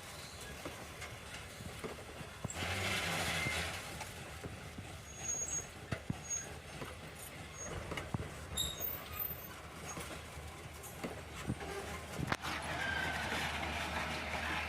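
Excursion train cars rolling past, the wheels knocking irregularly over the rail joints over a steady low rumble, with a brief rush of noise about two and a half seconds in.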